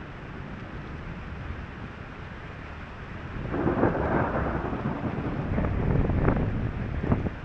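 Steady rain on a car, then about three and a half seconds in a clap of thunder rumbles in and rolls on for several seconds, with a few sharp cracks near the end.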